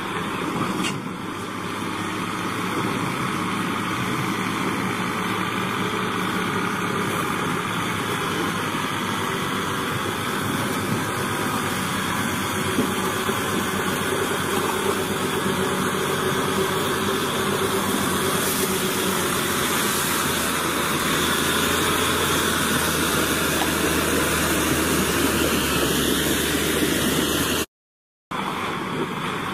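An engine running steadily under a rushing noise, cutting out briefly near the end.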